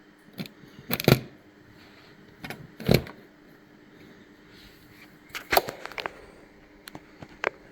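Small metal parts of a disassembled lock cylinder clicking and tapping as they are handled: a scattering of sharp little clicks, the loudest about one, three and five and a half seconds in.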